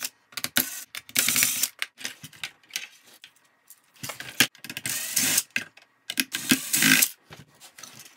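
Stock receiver and steering servo being pulled out of a small plastic RC boat hull by hand: irregular plastic clicks, rattles and scraping, in several bursts.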